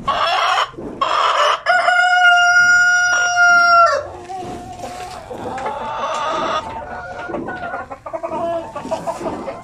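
Light Sussex rooster crowing, its long held final note ending about four seconds in, followed by hens clucking.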